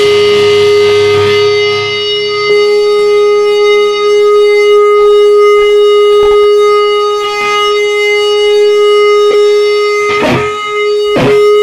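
Electric guitar through an amplifier holding one long, steady note that does not die away, its overtones ringing clearly. Two sharp knocks come near the end.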